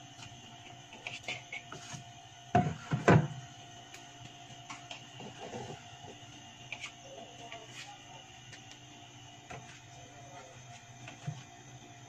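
Packaged food being set into a plastic refrigerator door shelf: small clicks and rustles, with a louder clatter of knocks about two and a half to three seconds in, over a steady hum.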